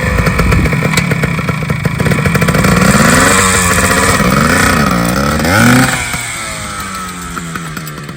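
Small two-stroke engine of a 1972 Yamaha 100 cc dirt bike running and revving, its pitch rising and falling several times, then settling to a lower, quieter run for the last couple of seconds.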